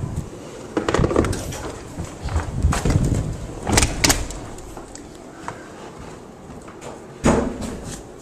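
A series of sharp knocks and clicks, the loudest a single thump near the end.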